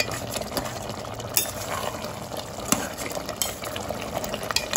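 Mutton and tomato masala sizzling in a pot on a high flame while a steel ladle stirs and scrapes through it, with a few sharp clacks of the ladle against the pot. The masala is cooking down until the oil separates around the sides.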